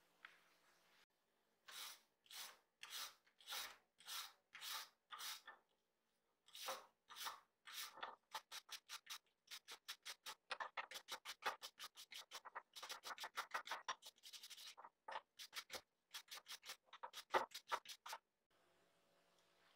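Rough rubbing strokes by hand against the rusty steel of a hammer head clamped in a vise, scouring off rust. The strokes come about two a second at first, then quicken to rapid runs of several a second with short pauses, and stop shortly before the end.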